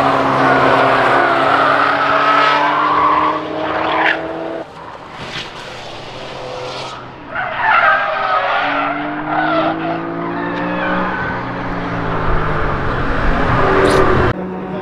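Race car engines revving up and down through the gears, with tyre squeal and skidding at the start and again about halfway through. A short sharp sound near the end.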